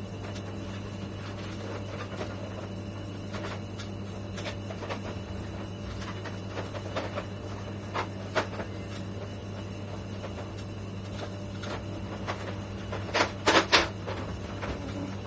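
Steady low electrical hum with scattered clicks and knocks of things being handled, and a quick run of louder knocks near the end.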